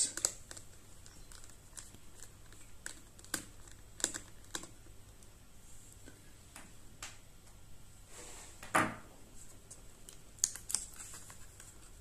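Light, scattered clicks and taps of a small Phillips screwdriver and screws being worked on a laptop's battery mounting, with one brief louder rub a little before the end.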